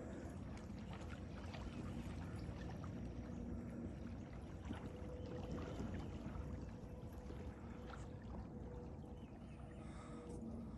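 Faint water lapping and splashing around a fishing kayak at the ramp, with small knocks and a faint steady hum underneath.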